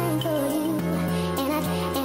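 Background music: a melody with a sung or vibrato-like lead over sustained low bass notes.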